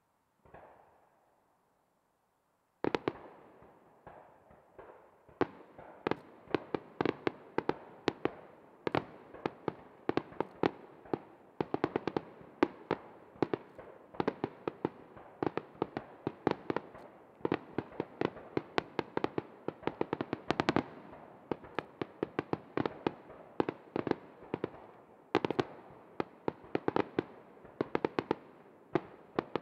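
Japanese starmine fireworks barrage: after a faint pop, aerial shells start bursting about three seconds in and keep going in rapid succession, several sharp bangs a second.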